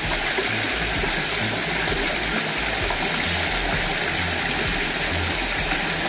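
Steady rush of water from a small waterfall and stream, flowing at an even level throughout.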